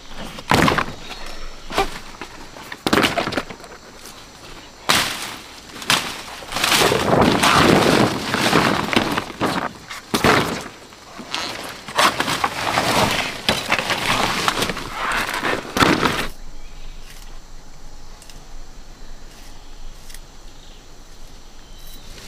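Thick, fleshy giant elephant-ear plant stalks being cut and snapped, with leaves and undergrowth crunching and rustling. It comes as a series of sharp cracks, then long crunching, rustling stretches. About two-thirds of the way through it drops to only light rustling.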